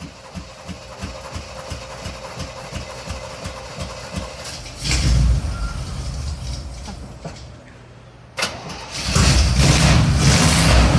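1986 Chevrolet Blazer engine cranking over on the starter. It catches briefly about five seconds in and fades, then fires about nine seconds in and keeps running.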